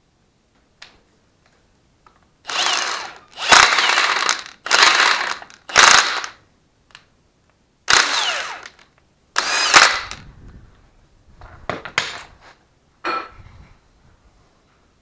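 LS V8 camshaft being dragged out of the engine block by hand, its lobes and journals scraping and clanking against the cam bearings in about nine harsh metal-on-metal scrapes, with a few sharp knocks among them.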